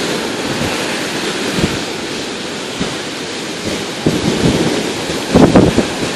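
Rough Baltic Sea surf breaking and washing up a sandy beach, with wind buffeting the microphone in gusts. The gusts are strongest and loudest about five seconds in.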